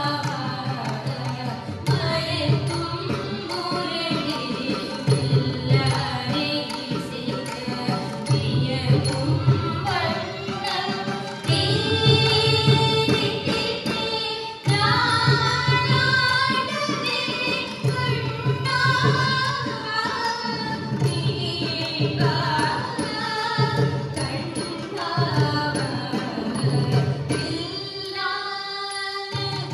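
Live Carnatic music for a thillana in raga Dwijavanthi: vocalists singing over mridangam strokes, with violin accompaniment and a steady drone beneath.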